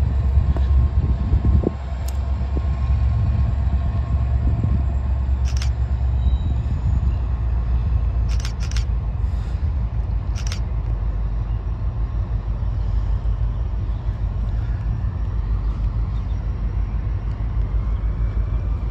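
Low steady rumble of an approaching freight train's diesel locomotives, with several sharp clicks scattered through the first half.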